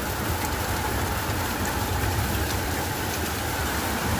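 Heavy rain drumming steadily on a tin roof, with the rush of water overflowing.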